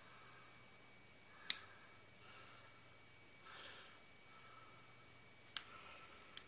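Near silence over a faint steady room hum, broken by three small sharp clicks: one about a second and a half in and two close together near the end. They come from a piston ring being worked by hand onto a chainsaw piston.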